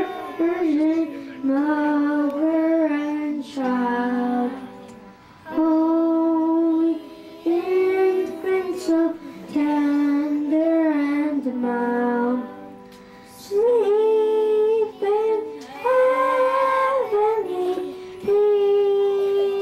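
A group of children singing a song together, in phrases of held notes with short breaks between them.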